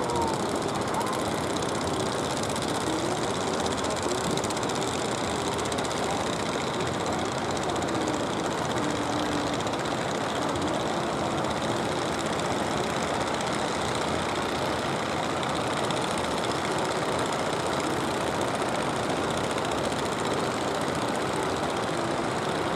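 Fishing boats' engines running steadily as the boats come in, under a constant hiss of surf and wind.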